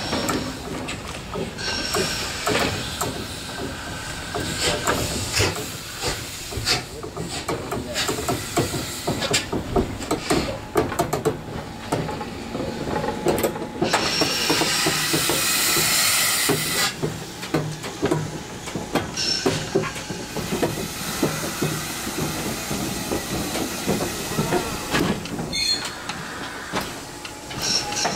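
Class 50 steam locomotive 50 3648-8 rolling slowly, its rods and wheels clanking, with steam hissing from the cylinder drain cocks. A loud burst of steam hiss runs about halfway through, with a shorter one a few seconds later.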